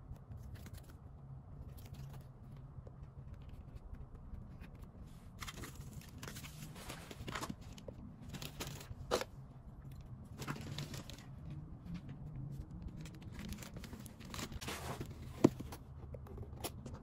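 Handling noises of photocards and a cardboard mailer on a wooden table: scattered rustling and scraping, with a sharp tap about nine seconds in and a louder one near the end, over a steady low hum.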